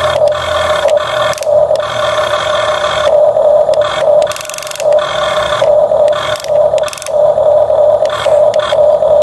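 Small electric motor and plastic gearbox of a miniature RC excavator whining steadily in runs that stop and restart, with scraping and rattling over it as it works.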